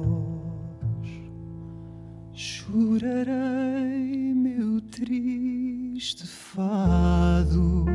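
Male singer holding long notes with vibrato into a microphone, with breaths between phrases. Low sustained accompaniment comes in strongly about seven seconds in.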